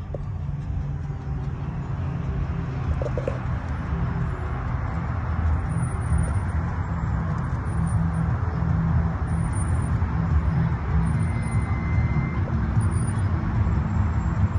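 Road and wind noise of a moving car heard from inside the cabin: a steady low rumble with a hiss above it, growing louder over the first few seconds and then holding.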